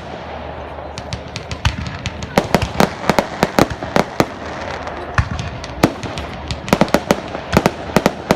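Fireworks display: an irregular string of sharp bangs and cracks from exploding shells, several a second, over a steady background hiss. It is sparser in the first second and densest in the middle and near the end.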